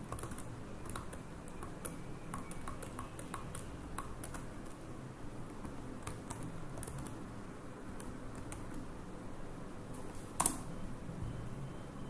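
Computer keyboard keys being pressed in scattered, irregular clicks, with one sharper click about ten and a half seconds in, over a low steady hum.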